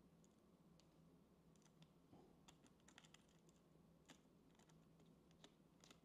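Faint, scattered small clicks of a screwdriver turning a tiny screw to fasten an M.2 SSD to a laptop motherboard, with near silence around them.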